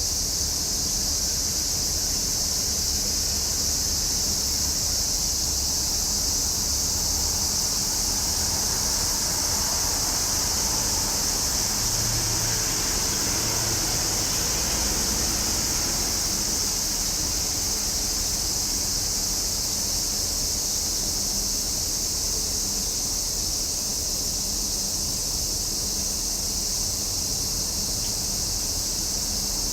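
Cicadas singing in a steady, unbroken high-pitched drone. A fainter, lower rush swells and fades about midway through.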